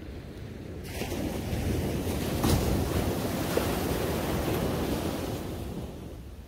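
Surf: a wave breaking on a sandy beach. Its wash comes in about a second in, is loudest around the middle, and fades away near the end.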